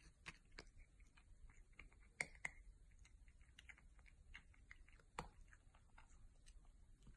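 A cat licking and eating food from a hand: faint, quick, irregular clicking mouth sounds, with two sharper clicks about two seconds in and another about five seconds in.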